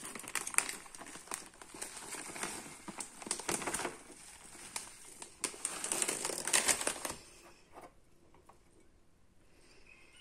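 Plastic bag of hydrated manioc starch for tapioca crinkling and rustling with many sharp crackles as it is handled and the starch is measured out. The crinkling goes on and off and stops about seven seconds in.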